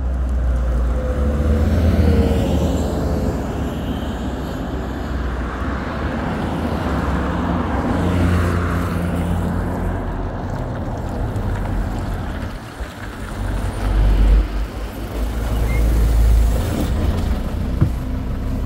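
Road traffic and the low engine rumble of a Volgabus-6271.G2 articulated city bus, running on compressed natural gas with a Yuchai YC6L280N-52 engine, as it draws up to the stop; the rumble is heaviest near the end.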